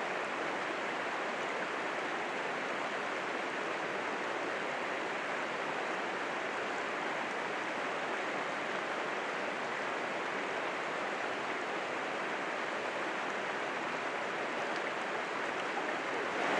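Small, cold mountain stream running over rocks: a steady, even rush of water with no change in level.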